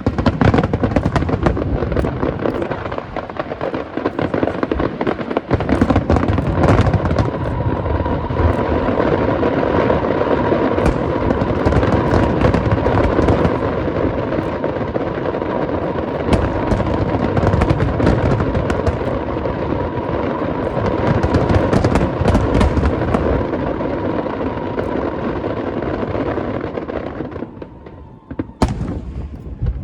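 Aerial fireworks going off in a dense barrage, many overlapping bangs and crackles with no gaps. It thins out and fades about three seconds before the end, then one last bang sounds.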